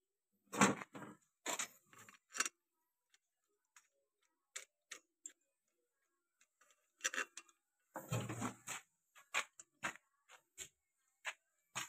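Sharp metal clicks and clinks of bolts and a lock plate being handled and seated on a tractor's new flywheel hub. There is a cluster of clinks about a second in, a longer rattle about eight seconds in, and single ticks scattered between them.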